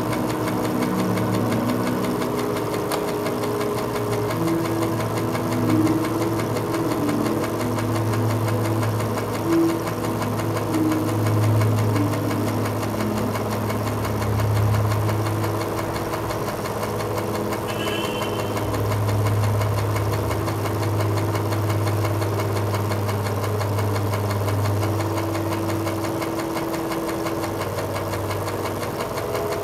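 A steady low drone: a deep hum with higher held tones that come and go and shift in pitch.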